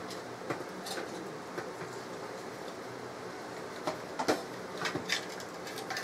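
Faint clicks and knocks of a graphics card and its cables being worked loose and pulled out of a desktop PC case, a few scattered taps with a cluster near the end, over a steady background hum.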